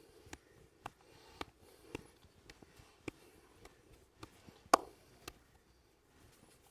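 Percussive massage strokes: a rhythm of sharp hand taps, about two a second. One stronger, ringing slap comes about three-quarters of the way through.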